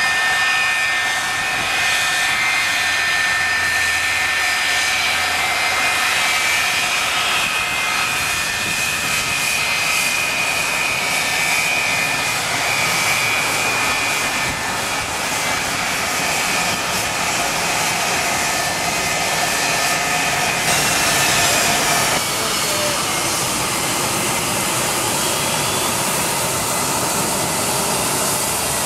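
McDonnell Douglas MD-83 jetliner's Pratt & Whitney JT8D engines whining steadily over a rush of jet noise as it taxis past; about two-thirds of the way through, the whine drops in pitch and the hiss grows harsher as the aircraft passes and turns away.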